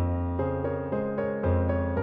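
Instrumental keyboard music: a melody over held chords, with a low bass note struck at the start and again about one and a half seconds in.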